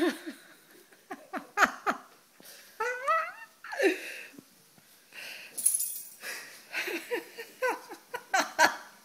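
A person laughing breathlessly, in wheezing gasps at first and then in a fast string of short bursts over the last few seconds.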